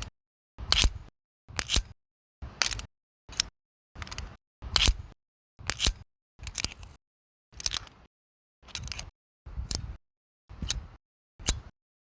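Via ferrata carabiners clicking and clinking in short, separate bursts, about once a second, a dozen or so times.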